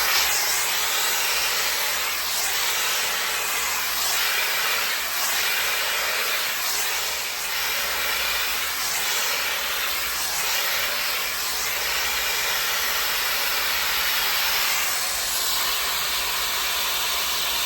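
MESCOMB 5-in-1 hot air styler, a 110,000 RPM hair dryer brush, blowing steadily through its medium round brush attachment while drying hair. The rush of air shifts slightly every second or two as the brush is drawn through the hair.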